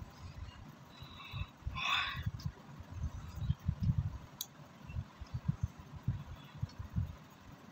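A woman's single breathy exhale about two seconds in, over irregular low rumbling thumps on the microphone, with one sharp click a little after four seconds.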